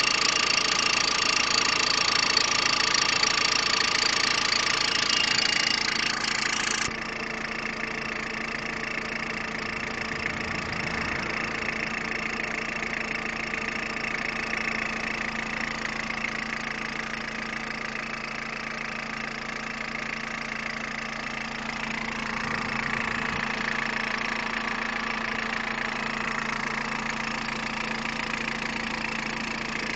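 Peugeot 106 1.5 diesel engine idling steadily. About seven seconds in, the sound abruptly becomes quieter and duller, then the engine runs on unchanged.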